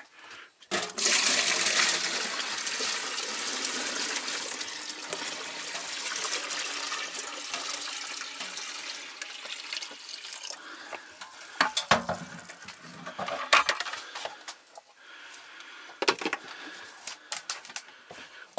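Water pouring and splashing for about ten seconds, fading gradually, followed by a few sharp metallic clinks.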